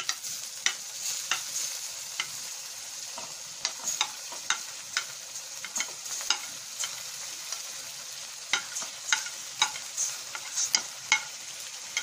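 Hot cooking oil sizzling steadily in a pan as chopped tomatoes are tipped in on top of fried green chillies and spices, with frequent sharp clicks and ticks throughout.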